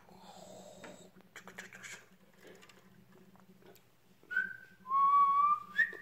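Cockatiel chattering softly, then whistling: a short note about four seconds in, followed by a louder, longer steady note and a higher note near the end.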